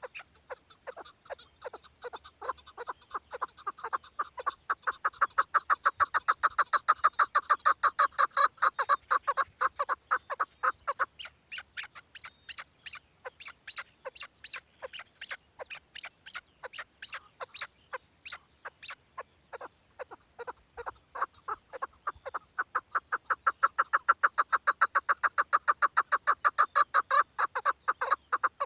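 Chukar partridge calling: a long rapid series of clucking notes, about five a second, that swells to a loud chorus twice.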